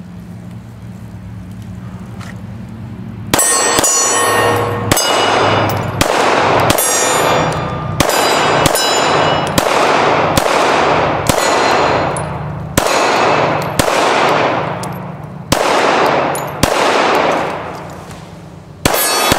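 Glock 17 9mm pistol fired at a steady pace, about fifteen shots roughly a second apart starting about three seconds in, with steel targets ringing after the hits.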